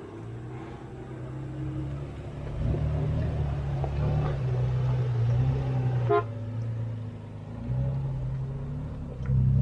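Off-road 4x4 engine running under load, louder from about two and a half seconds in, with one short horn toot about six seconds in.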